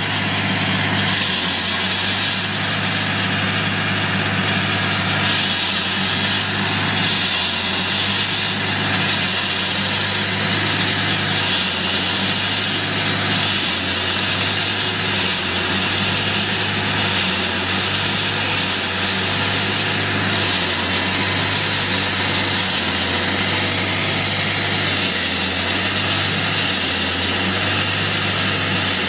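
Diesel engine of a JHD-900 walk-behind concrete saw running steadily at constant speed, with an even high hiss over the engine note.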